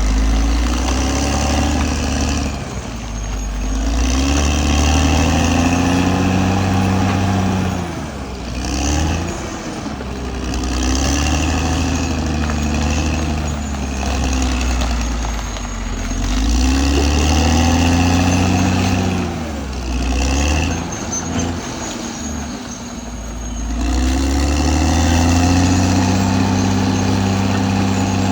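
Caterpillar D6R XL bulldozer's diesel engine working under changing load, its note rising and falling in four long surges with drops in between as it pushes and backs off.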